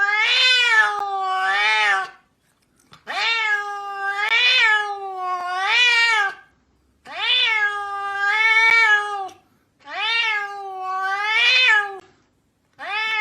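A cat giving long, drawn-out meows: four calls of two to three seconds each, the pitch rising and falling within each, and a fifth just starting at the end.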